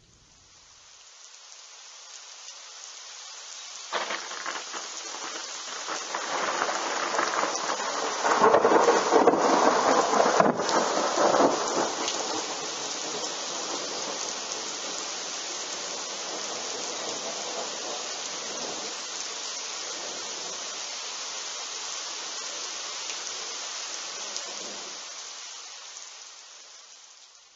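Rain falling steadily, with thunder breaking suddenly about four seconds in and rumbling loudest a few seconds later before easing back to rain alone. The sound fades in at the start and fades out near the end.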